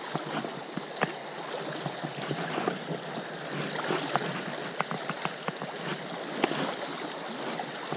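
Creek water flowing steadily, with many short sharp clicks scattered through it.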